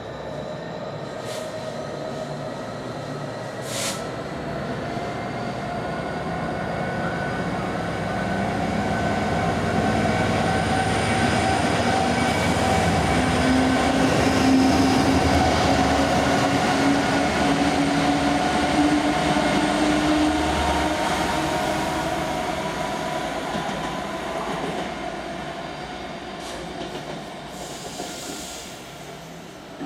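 A train passing through the station. Its running noise builds to a peak about halfway through and then fades away, with steady whining tones over the rumble of the wheels.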